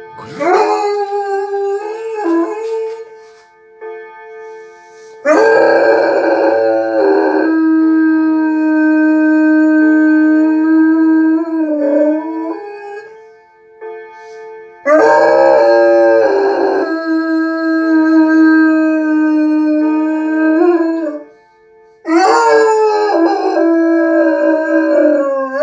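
Dog howling: a short howl at the start, then three long drawn-out howls of several seconds each, held at a steady pitch that wavers and drops as each one ends.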